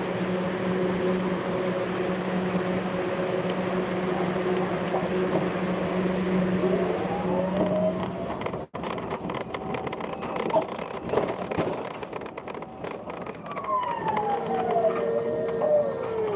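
Forklift driving: a steady motor hum at first, then a whine that rises and falls as the truck speeds up and slows down, with some rattling. The sound drops out for an instant about nine seconds in.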